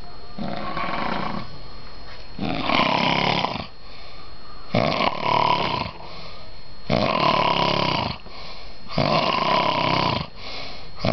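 A man snoring heavily in his sleep: a loud snore about every two seconds, with quieter breaths between them.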